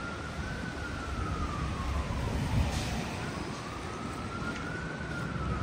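Emergency vehicle siren in a slow wail, rising and falling about once every four to five seconds, over steady street and traffic noise, with a brief thump about halfway.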